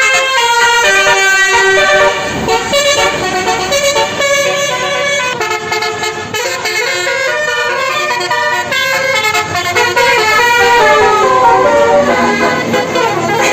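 Bus 'telolet' musical air horn of the Basuri type playing a long tune, its several tones stepping from note to note without a break.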